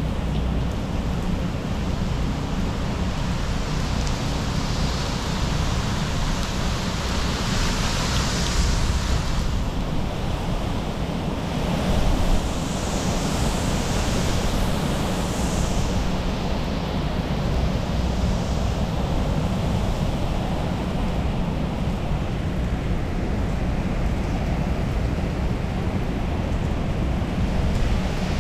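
Tropical-storm wind and heavy rain, a steady rushing with gusts swelling about a third of the way in and again around the middle, and wind buffeting the microphone with a low rumble.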